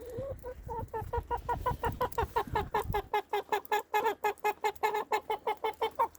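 A chicken clucking in a fast, even run of short notes, about six a second, all through. A low rumble sits under the clucks for the first three seconds.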